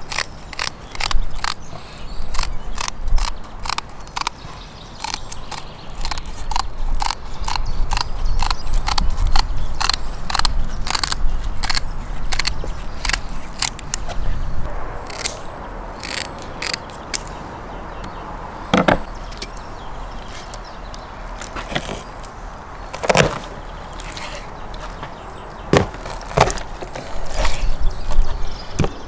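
Kitchen shears snipping through a catfish's fins: a quick run of sharp snips, then slower, spaced cuts in the second half.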